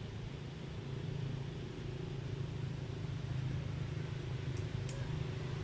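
Steady low rumbling hum, with two faint clicks near the end.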